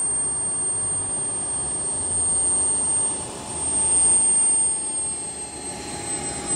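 Model jet turbine running, a rushing jet noise with a thin, steady high-pitched whine. It dips about three seconds in, swells again a second later, then eases off.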